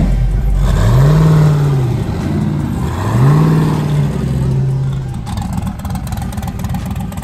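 A car engine revved twice, each rev rising and falling in pitch over about a second, then settling back to a steady idle.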